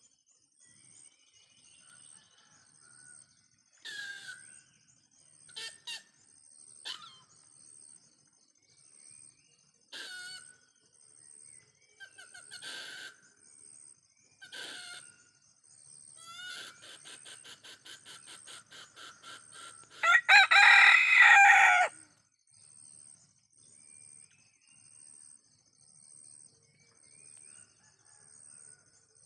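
Indonesian village chickens (ayam kampung) calling with short clucks, then a run of rapid clucks, followed by a loud rooster crow of about two seconds about twenty seconds in. Crickets chirp steadily throughout.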